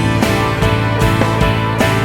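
Background music led by a plucked acoustic guitar, with a steady beat.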